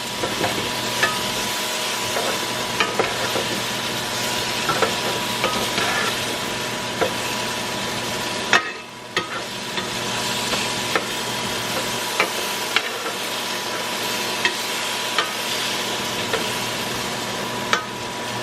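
Sliced onions and bell peppers sizzling in olive oil in a frying pan: a steady hiss with scattered small pops and crackles, briefly quieter about halfway through.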